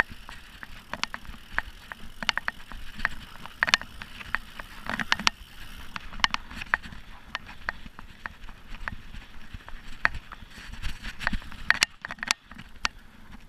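Mountain bike being ridden over a bumpy dirt forest trail. Irregular sharp rattles and clicks come from the bike jolting over the ground, over a steady low noise.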